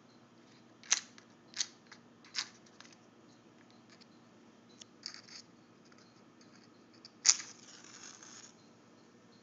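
A wooden match struck against its box: three sharp strikes that don't light, then a few softer scrapes, and near the end a strike that catches and flares with a hiss lasting about a second.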